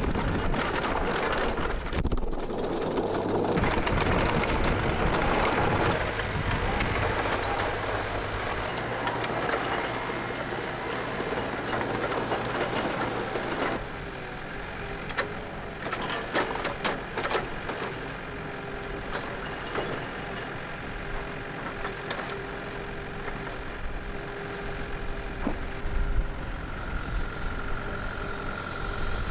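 Diesel engines of a log truck and a Takeuchi mini excavator running. About halfway the sound drops to the excavator working its hydraulic log grapple, with a steady tone and a few sharp knocks of logs.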